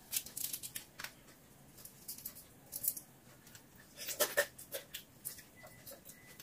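Cooked shrimp being peeled by hand, the shells crackling and clicking in short, sharp bursts, with a louder wet mouthful of sucking and smacking about four seconds in as the fingers go to the mouth.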